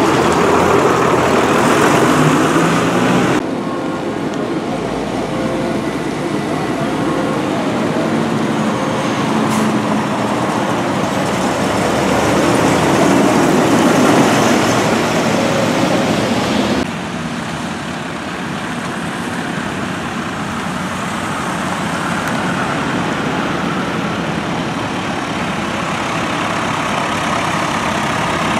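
Farm tractors' diesel engines running as they drive past one after another, with tyre hiss on a wet road. The sound changes abruptly about three seconds in and again about seventeen seconds in, and is loudest near the middle as a Fendt 820 passes close.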